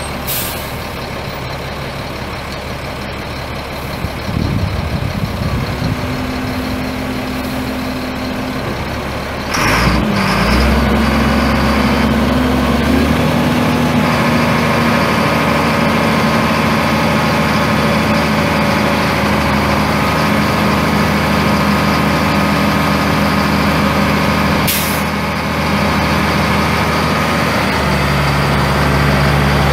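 Caterpillar 3126 inline-six turbo diesel engine of a Sterling L8500 dump truck running steadily, getting louder about ten seconds in. Three short hisses of released air from the truck's air brake system: one at the start, one just before the engine grows louder, and one near the end.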